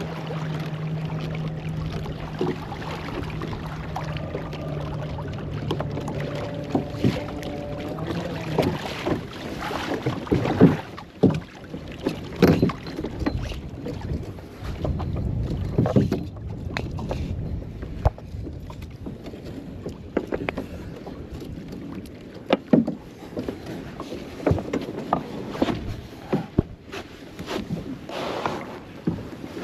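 Kayak on the water: irregular splashes of water and knocks against the hull. A steady low hum runs for the first third and stops about eight seconds in.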